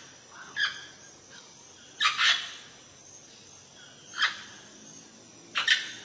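Amazon parrot giving loud, harsh squawks: four calls a second or two apart, the second and the last doubled.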